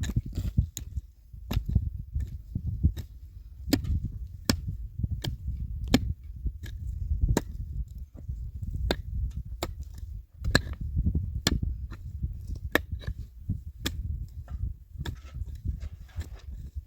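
A series of sharp knocks, roughly one or two a second and unevenly spaced, over a steady low rumble.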